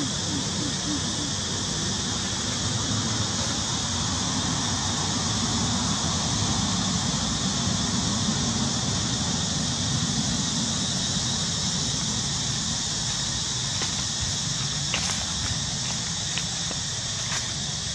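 Steady outdoor background noise: a continuous high hiss or drone with a low rumble underneath, and a few faint clicks near the end.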